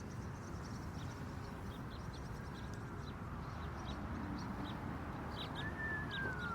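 Birds chirping in short, scattered chirps over steady low background noise, with one falling whistle-like note near the end.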